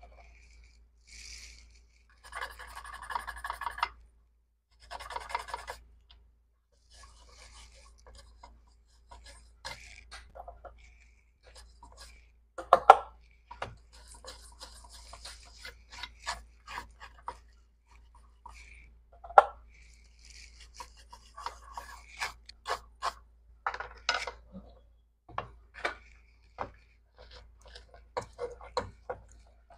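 Scratching and rubbing by hand on the Hyundai Xcent smart key module's circuit board, in short, irregular strokes broken by small clicks and taps.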